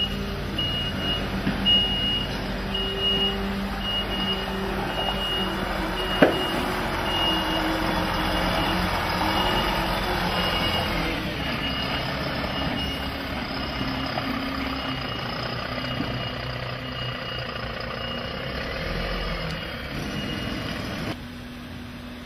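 Garbage truck's reversing alarm beeping about once a second over the truck's running engine, with one sharp knock about six seconds in. The beeping stops near the end.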